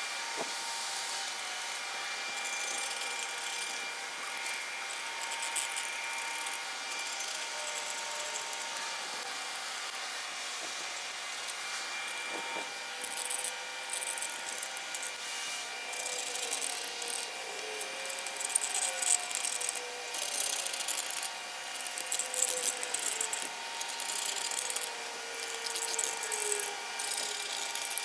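Small hand deburring scraper scraped back and forth over the bottom edges of an LS engine block's cylinder sleeves, taking off the burr left from honing. Short scratchy strokes come more often and louder in the second half, over a steady background hum.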